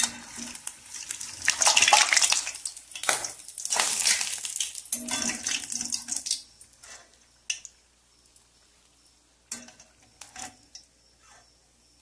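Kibbeh deep-frying in hot oil in an aluminium pot, sizzling and bubbling. After about six seconds the sizzle drops away, and a few sharp clicks of a metal slotted spoon against the pot follow as the kibbeh are lifted out.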